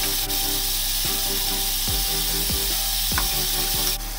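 Beef short ribs sizzling as they sear in an aluminium pressure cooker, a dense hiss that cuts off suddenly near the end. Background music with a beat plays under it.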